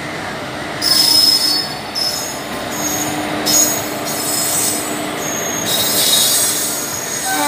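Train wheels and brakes squealing as a train slows into the platform: high-pitched squeals start about a second in and come and go several times over a steady low hum.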